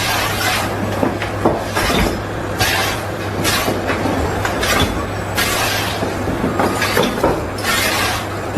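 Loud, steady machine noise with a low hum and irregular rattling and clatter throughout.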